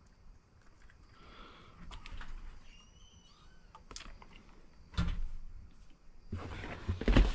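Handling noise from a plastic LED marker light and its packaging: scattered light clicks, a sharp knock about five seconds in, and a burst of rustling with a louder knock near the end.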